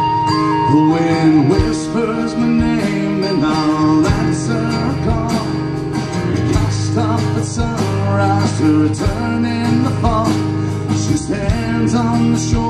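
Live folk-rock band playing an instrumental intro: strummed acoustic guitar, electric bass and drum kit, with a lead melody over them.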